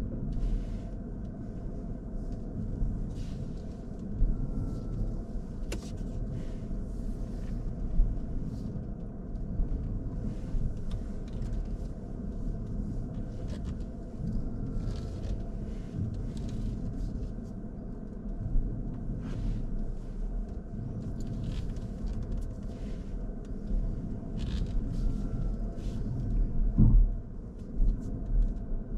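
Car interior noise while driving slowly: a steady low engine and road rumble in the cabin, with occasional faint clicks and one brief louder thump near the end.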